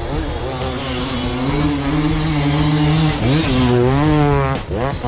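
Enduro dirt-bike engine running under changing throttle. Its pitch holds fairly steady, then rises sharply about three seconds in, and drops and climbs quickly again near the end.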